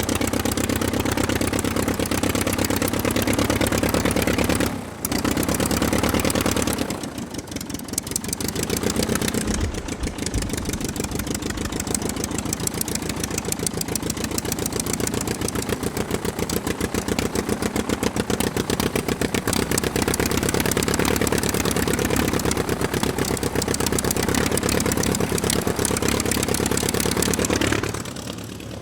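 Aircraft piston engine running steadily with a rapid, even pulsing beat. The sound dips briefly about five seconds in, again a couple of seconds later, and once more near the end.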